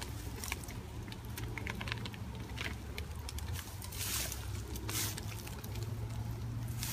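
Plastic zip-top bags crinkling and rustling in gloved hands, with many small scattered clicks and a couple of louder rustles about four and five seconds in.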